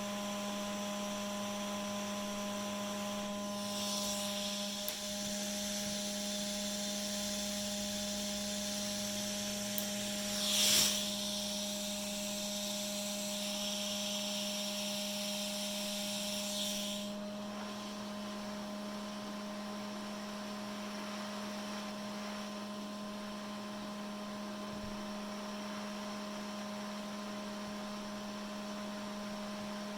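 Steady electrical mains hum with a few fixed tones. A high hiss joins it a few seconds in and cuts off suddenly just past halfway, with one brief louder swell in the middle of the hiss.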